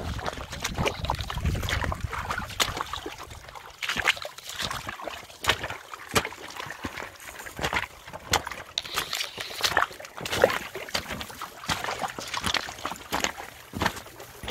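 Water splashing and sloshing in an irregular run of splashes, as dogs wade and move through it.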